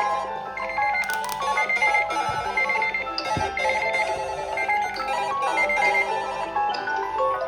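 A phone ringtone playing: a busy melodic tune of quick notes, with a short high trill recurring about once a second.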